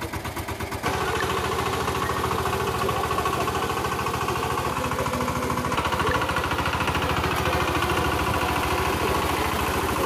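VST Shakti 130-DI power tiller's single-cylinder diesel engine running with a steady rhythmic pulse; about a second in it gets louder as the throttle is pressed to raise the speed, and holds there.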